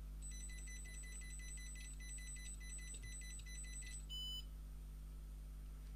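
The electronic buzzer of a homemade Arduino touchscreen alarm beeps rapidly and evenly, high-pitched, for nearly four seconds, stopping as the code is entered on the keypad. One short, lower beep follows.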